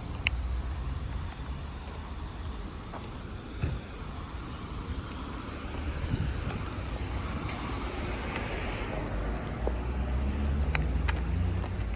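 Outdoor street ambience: wind rumbling on the microphone and traffic going by, with a few faint clicks.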